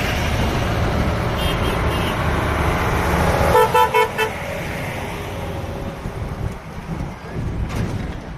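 A heavy truck's engine rumbling as it passes, then a horn sounding about four short toots in quick succession a little past the middle, followed by quieter engine noise.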